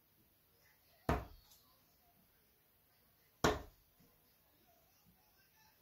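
Two steel-tip darts striking a Winmau Blade 5 sisal bristle dartboard: one sharp thud about a second in, the next about two and a half seconds later.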